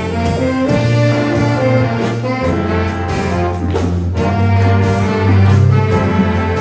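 Jazz big band playing: brass and saxophone sections over a walking bass line and drum kit, with cymbal strikes keeping time.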